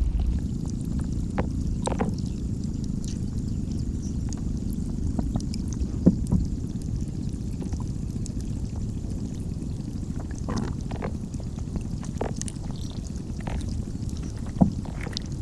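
Steady low rush of running water, with small clicks and pops scattered through it.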